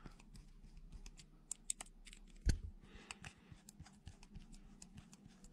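Insulated screwdriver undoing the cord-grip screws of a plastic UK plug top: faint, scattered small clicks, with one louder knock about halfway through.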